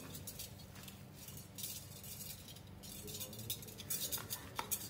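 A hand squeezing and mixing mashed potato filling in a plate, while metal bangles on the wrist clink and jingle in short spells, most busily near the end.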